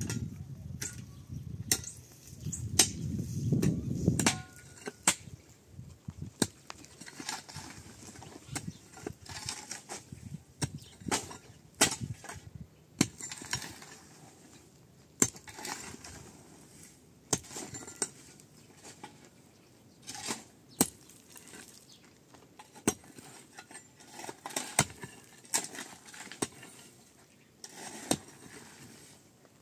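Irregular knocks and clinks with short scraping or rustling noises between them, after a low rumble that fades out about four seconds in.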